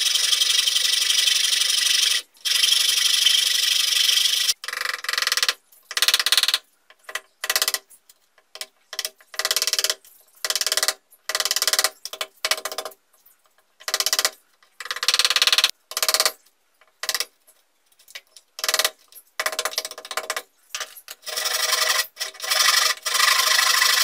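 Small hand hacksaw sawing into a plywood box wall in long unbroken strokes, then a run of short, separate rasping strokes. Near the end a metal hand file rasps steadily on the wood to clean up the cut notch.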